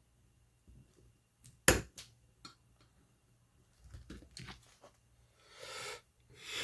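Small metal parts of a break-barrel air rifle's trigger and safety assembly clicking and knocking as they are handled, with one sharp click about two seconds in and lighter clicks later. Two soft rushing sounds follow near the end.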